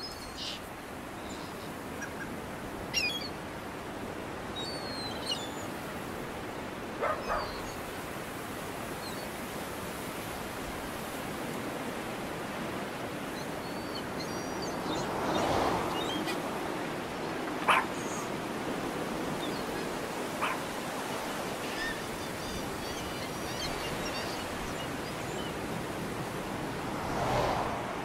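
Seaside outdoor ambience: a steady wash of surf-like noise, with small birds chirping now and then and a handful of short, louder animal calls scattered through.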